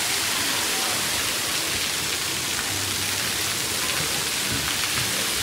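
Water spraying and splashing down from the nozzles and pipes of a splash-pad play structure onto the wet deck: a steady, rain-like hiss.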